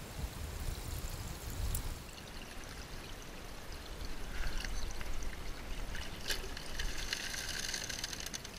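Creek water running and trickling through a metal gold sluice box set in the stream, growing louder about halfway through. A few light clicks come near the end.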